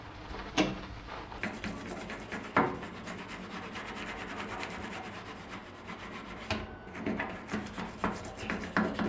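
Rapid back-and-forth scrubbing by hand on a hard surface, running for about five seconds, with a few sharp knocks of items being handled near the start and in the last couple of seconds.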